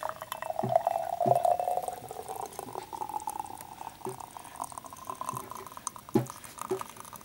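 Thick blueberry smoothie poured from a blender jug into a glass mug: a gurgling pour whose pitch rises steadily as the mug fills, with a few small thuds along the way.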